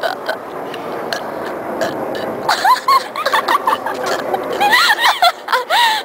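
A steady rough noise for about two and a half seconds, then teenage girls laughing in high-pitched giggles and squeals.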